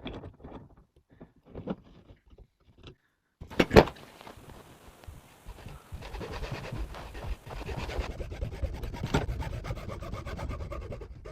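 Hacksaw cutting through a plastic steerer bung clamped in a bench vice, in fast, steady back-and-forth strokes from about four seconds in. Before that come small handling clicks and one sharp knock.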